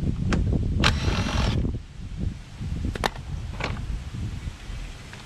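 Cordless drill-driver running in short bursts over the first two seconds, backing out the mower engine's shroud bolts, then a few sharp clicks.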